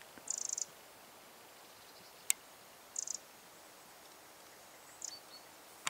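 Eurasian wren giving short, high rattling calls: three brief bursts, near the start, about three seconds in and about five seconds in. A single sharp click comes between the first two.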